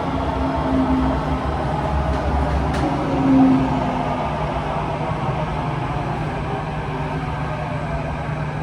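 Steady rumble and hum inside a Kawasaki-CRRC Qingdao Sifang T251 metro car, with faint tones slowly falling in pitch over the first few seconds and a brief louder hum a little over three seconds in.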